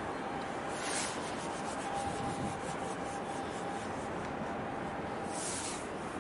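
Steady outdoor background noise with a faint steady hum, and brief rubbing or rustling sounds about a second in and again near the end.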